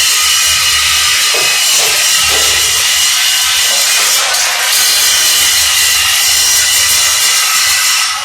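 Continuous loud, harsh hissing rasp of metalworking, steady throughout with no hammer blows.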